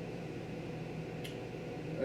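Steady low background hum of the room, with one faint short click a little over a second in.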